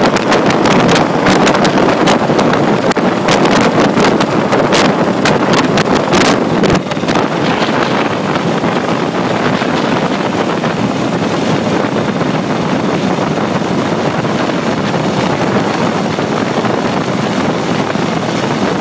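Wind buffeting the microphone of a phone carried on a moving motorcycle, a loud rushing noise over the running of the bikes. The gusty buffeting settles into a steadier rush about seven seconds in.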